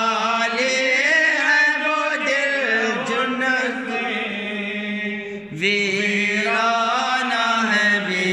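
A man chanting an Urdu naat (devotional praise poem) solo, in long drawn-out melodic lines, with a short breath about five and a half seconds in.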